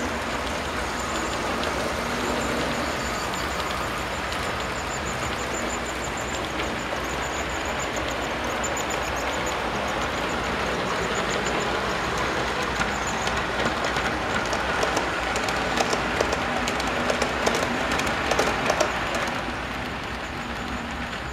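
HO-scale model train running on the layout: a steady electric motor whine with rumbling wheels on the track, and a run of rapid clicks in the second half as the wheels cross rail joints and turnouts. The sound drops off shortly before the end.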